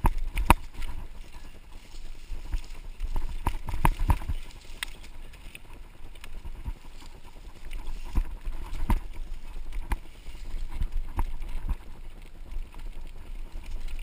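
Mountain bike jolting over a rough, overgrown single-track trail, its frame and parts rattling with irregular sharp knocks over a low, steady rumble.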